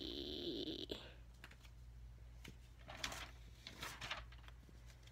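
A girl's drawn-out thinking hum that ends about a second in. Then a low steady background hum with two short breathy sounds, near the three- and four-second marks.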